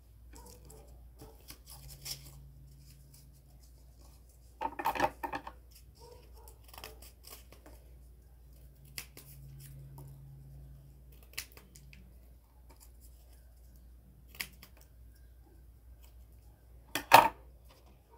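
Scissors snipping and cardboard pieces being handled on a wooden tabletop: scattered short snips and rustles, with a louder cluster about five seconds in and the loudest snap near the end.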